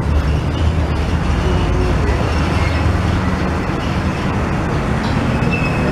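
Heavy diesel truck engine with a steady low drone as the loaded articulated truck moves slowly past, mixed with road traffic noise.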